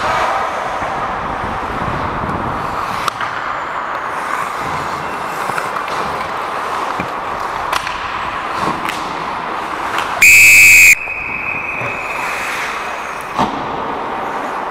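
Hockey referee's whistle blown once, hard and close, for about three quarters of a second, signalling a stoppage in play; a fainter whistle tone carries on for about two seconds after. Beneath it, skates scraping the ice and occasional sharp clicks of sticks and puck.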